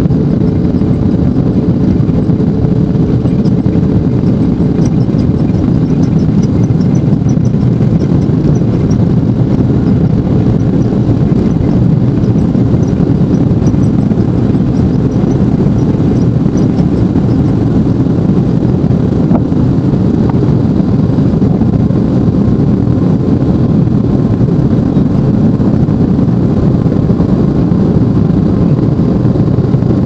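Cabin noise of a Lockheed L-1011 TriStar climbing out after takeoff: the steady, loud rumble of its Rolls-Royce RB211 turbofans at climb power, mixed with the rush of air past the fuselage, heard from inside the cabin.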